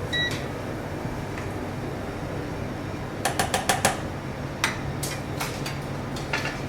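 Metal kitchen utensils clinking against pans and dishes: a quick run of about six sharp clinks about three seconds in, then a few scattered ones, over a steady low hum. A short electronic beep sounds right at the start.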